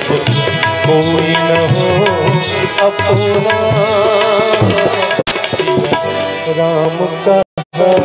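Tabla playing a lively rhythm under a sustained harmonium and keyboard melody line in an instrumental passage of live Indian music. The sound cuts out briefly twice near the end.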